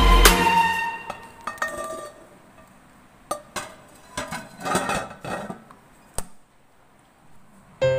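Clinks and taps of a metal cake pan knocking against the wire rack and metal pot as the pan is lifted out, with a sharp click about six seconds in.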